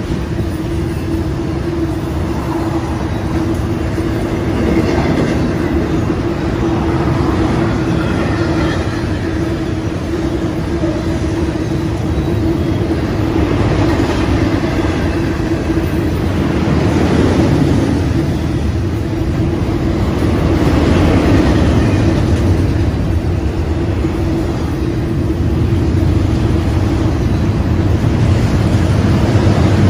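BNSF intermodal freight train's cars (trailers on flatcars and double-stack containers) rolling past: a steady rumble of steel wheels on rail with a steady low hum running through it, swelling a little as each group of cars goes by.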